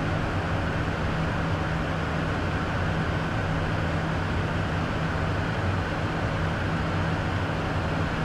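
Steady in-flight cabin noise of a Beechcraft Premier I business jet: an even wash of airflow noise over the airframe with a low steady hum underneath.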